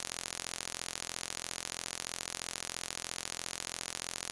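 Steady static hiss, strongest in the treble, pulsing quickly and evenly several times a second.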